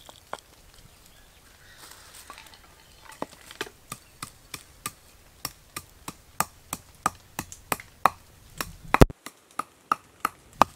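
Wooden pestle pounding in a mortar: a run of sharp knocks, about three a second, starting a few seconds in, with the loudest strikes near the end.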